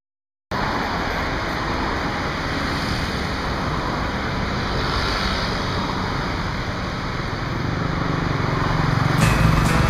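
Steady road traffic noise from cars and motorcycles passing on a busy multi-lane city street, starting abruptly half a second in and growing a little louder near the end.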